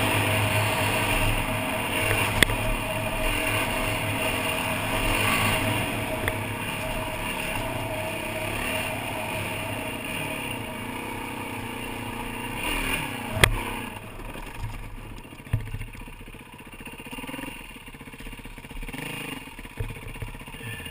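Yamaha dirt bike engine running under way on a rough dirt track, with two sharp knocks from the bike, one about two seconds in and a louder one near the middle. After that the engine drops back and quietens to a low running sound as the bike slows and stops.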